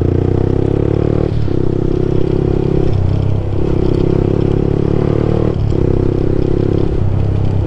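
Motorcycle engine under way from the rider's seat, accelerating with a steady engine note that rises a little in each stretch. The note breaks off briefly about a second and a half in, again around three seconds and again near five and a half seconds, as gears change.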